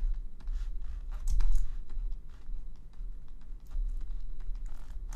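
Stylus tapping and scratching on a graphics tablet in irregular light taps and scrapes, over a steady low hum.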